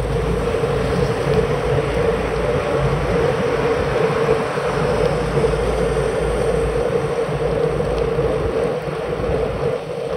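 Steady rush of wind and rolling tyre noise on a bicycle-mounted action camera's microphone while riding along the road at speed, with a constant mid-pitched hum and low rumble. It dips slightly near the end.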